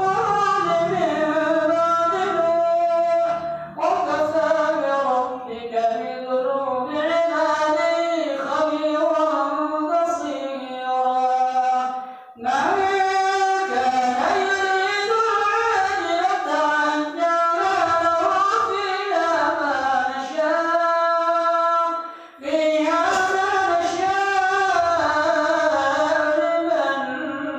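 An imam's melodic Qur'an recitation while leading prayer: a single voice chanting long, held phrases whose pitch slides up and down, with short breath pauses about 4, 12 and 22 seconds in.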